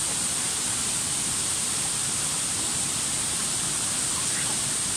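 Steady rushing of falling water, an even unbroken noise with a strong high hiss.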